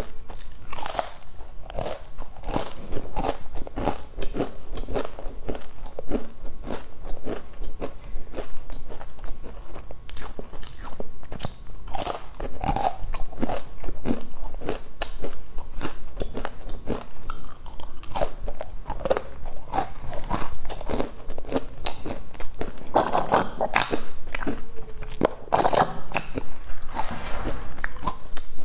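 Close-miked crunching of a thin black sesame crisp being bitten and chewed, a dense run of sharp crisp cracks throughout, with louder bites now and then.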